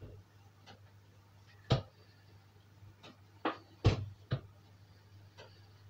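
A few sharp knocks and clatters of kitchenware being handled, the loudest about four seconds in, over a faint steady low hum.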